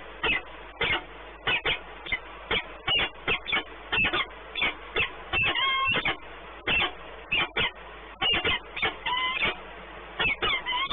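Peregrine falcon calling in a rapid, irregular series of short harsh calls, two or three a second, with a few longer drawn-out wailing calls among them.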